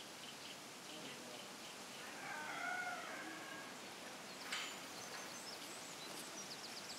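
Quiet farmyard ambience with faint small-bird chirps, and about two seconds in a single call of about a second from domestic fowl, such as a chicken. A short sharp knock sounds about halfway through.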